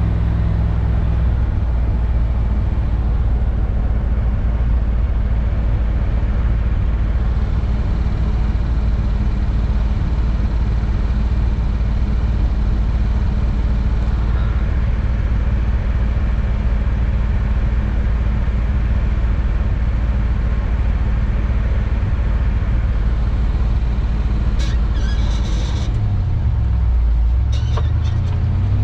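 Steady low rumble of a vehicle's engine and road noise heard from inside the cabin while driving. Near the end the engine note shifts up and down.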